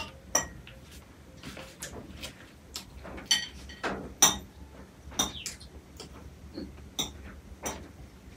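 Forks clinking and scraping against plates and a large metal pan as two people eat: irregular sharp clinks, some ringing briefly, about one or two a second, the loudest about four seconds in.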